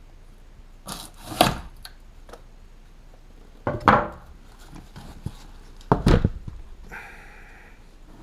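Cardboard shipping box being handled as it is opened after its tape was cut: three short scraping, rubbing bursts of cardboard, about a second in, at four seconds and at six seconds, with a fainter rustle near the end.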